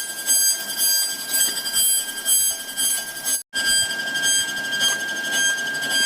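CNC router spindle whining at a high steady pitch as it cuts wood for a charpai leg, with grinding cutting noise beneath. The sound cuts out completely for a moment about three and a half seconds in, then resumes.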